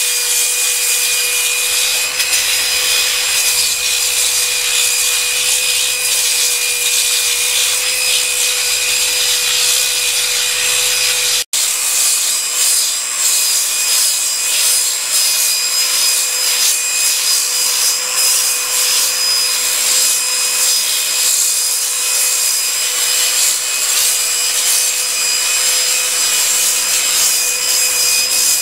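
Wet polisher (a grinder with a water feed) running under load, its 50-grit pad grinding a concrete countertop: a steady high motor whine over the gritty scraping of the abrasive on concrete. The sound drops out for an instant about eleven seconds in, then carries on the same.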